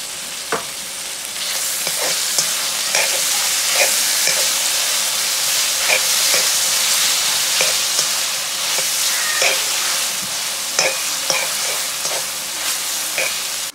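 Meat, onion and tomato sizzling in a hot kazan while being stirred with a slotted spatula, which knocks and scrapes against the pot every second or so. The sizzling gets louder about a second and a half in.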